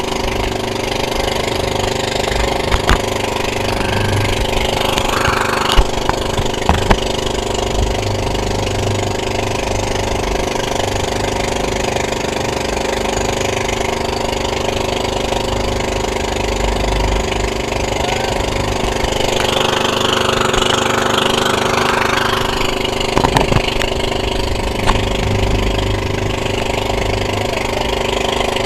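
Engine of a motorized outrigger boat running steadily under way, with water splashing along the hull and a few sharp knocks.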